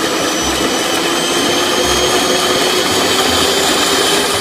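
Electric hand mixer running steadily at one speed, its two wire beaters whisking a thick cream or batter in a plastic bowl.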